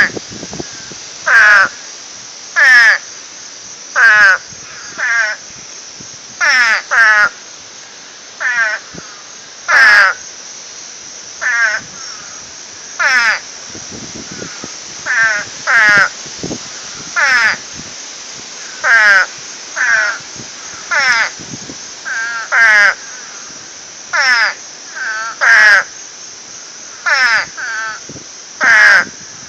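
Frogs in a pond calling: short, raspy chirping calls repeated about once a second, several voices overlapping at times.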